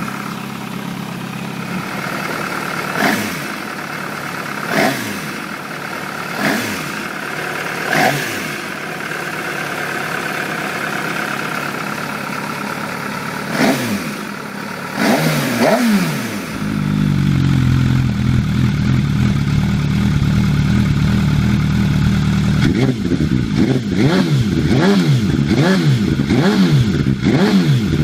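MV Agusta F4 RR inline-four engine idling in neutral, with about seven short throttle blips over the first half. About halfway through, a deeper, louder idle takes over from an F4 fitted with an aftermarket twin-outlet exhaust. Near the end it is revved hard in quick succession, a little more than once a second.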